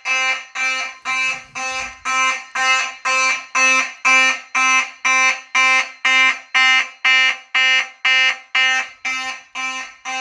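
Fire alarm horn sounding a pulsed tone about twice a second, with a buzzy, reedy character: the system is in alarm after a detector was tripped.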